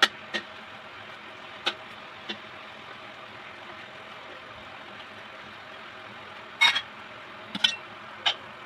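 Pork ribs frying in oil in a steel wok, with a steady sizzle. A metal spatula clinks and scrapes against the wok a few times, loudest in a cluster of knocks about seven seconds in.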